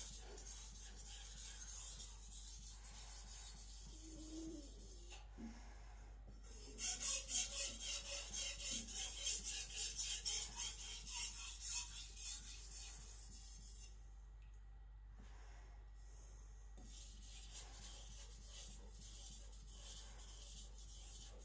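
Blue-steel (aogami) gyuto edge stroked back and forth on a wet whetstone with very light pressure, about 10-20 grams: a steady rasping scrape. The strokes are loudest in the middle stretch, about two a second, with short pauses between runs. This is the light edge-finishing stage of sharpening.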